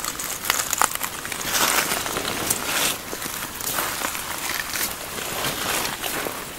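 Footsteps crunching through fresh snow: irregular short crunches with a few longer swishes.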